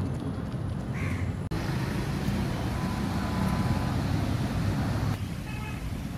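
Steady low rumble of road traffic, with a short pitched tone near the end.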